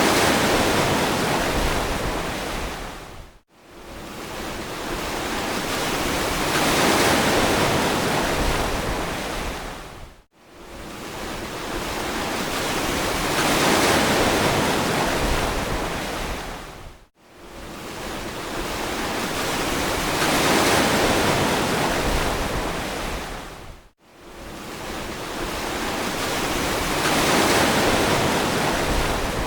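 Ocean waves washing onto a beach, a wide rushing noise that swells and fades in cycles of about seven seconds. Each cycle ends in a sudden brief drop to near silence, four times over.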